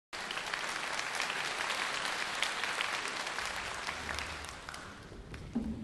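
Audience applauding in a hall, the clapping thinning and dying away over the last couple of seconds, with a brief low tone near the end.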